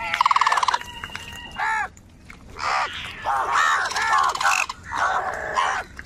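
A flock of house crows cawing: harsh calls follow one another with short gaps, some overlapping, the first one buzzy and rapidly pulsed.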